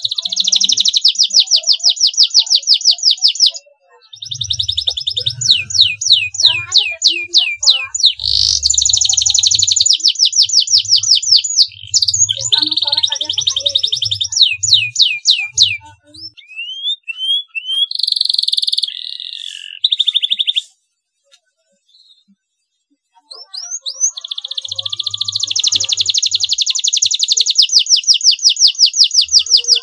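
Domestic canary singing: long phrases of very fast, high trilled notes, broken by brief pauses and by a longer silence about two-thirds of the way through before a fresh trill.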